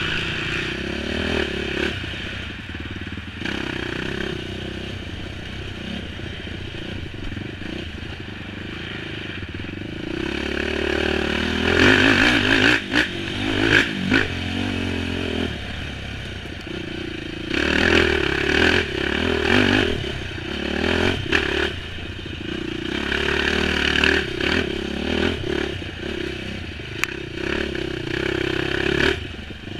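Dirt bike engine heard from on board, revving up and easing off again and again as it is ridden hard over rough ground, with the loudest bursts about twelve to fourteen seconds in. Knocks and rattles from the bike over the bumps.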